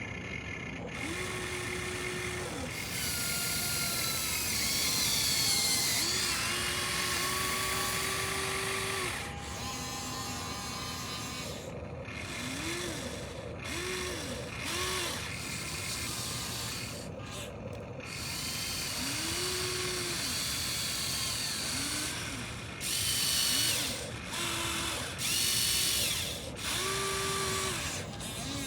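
Small electric motors of a radio-controlled construction toy whining in a string of short runs, one to three seconds each. Each run rises in pitch as the motor speeds up, holds, then falls away as it stops. The louder runs come near the end.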